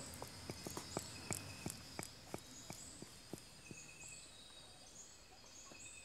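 Faint outdoor rainforest ambience: a steady high-pitched insect buzz, with a run of faint sharp clicks about three a second that thin out after the first few seconds.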